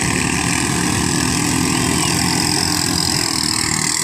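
Ketinting longtail boat engine running steadily, with a fast, even firing beat.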